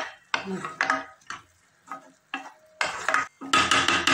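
A wooden spatula stirring and scraping vermicelli upma around a non-stick kadai, in a series of short, irregular strokes that run together into continuous scraping near the end.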